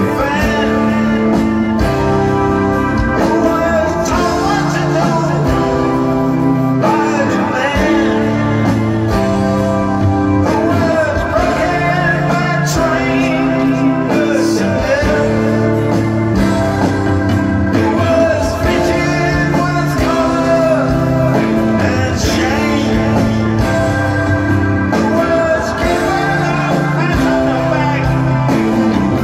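Live rock band playing, loud and continuous: bass, electric and acoustic guitars and drums, with sung vocals over them, heard from the audience in a large hall.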